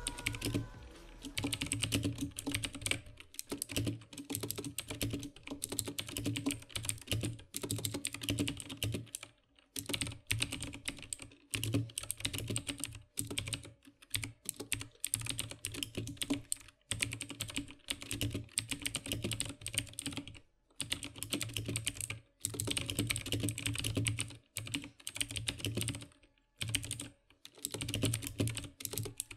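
Typing on a mechanical keyboard: dense runs of keystroke clicks and clacks, broken by several brief pauses.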